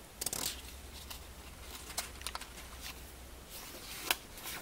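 Paper rustling and page turning as a small printed instruction booklet is handled. There is a rustle near the start and a sharp click with more rustling near the end.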